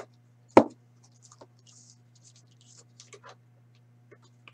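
Camera being picked up and handled: a sharp knock about half a second in, then light scratching and rubbing with a few small clicks, over a steady low hum.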